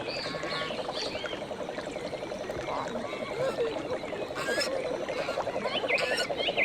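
Animal calls: a fast, steady pulsing chorus, with short chirping calls over it that grow busier near the end.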